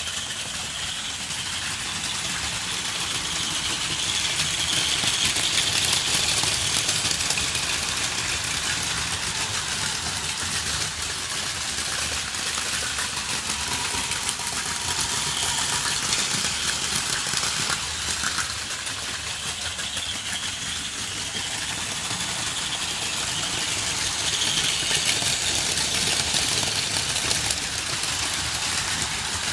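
Several battery-powered Plarail Advance toy trains running at once on plastic track: small electric motors whirring and wheels rattling over the rails. The sound swells and eases as the trains come nearer and move away.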